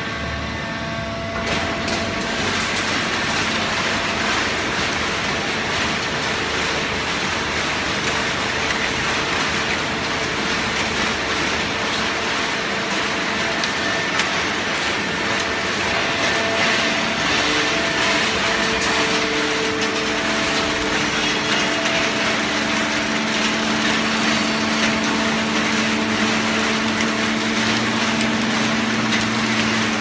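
Fully automatic horizontal hydraulic baler running: a steady mechanical noise with a hum from its electric motor and hydraulic pump. The hum grows stronger about three-quarters of the way through.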